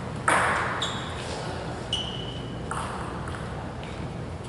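Sneakers squeaking briefly on a rubber sports floor, a few short high squeals, with a short burst of noise about a third of a second in.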